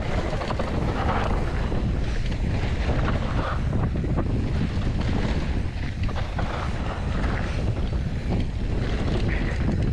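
Wind buffeting the camera microphone with a steady low rumble, broken by scattered knocks and rattles, as a mountain bike descends a dirt trail.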